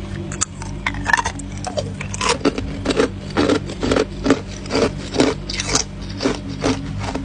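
Hard ice being bitten and chewed close to the microphone: a run of sharp, uneven crunches, about three a second, over a steady low hum.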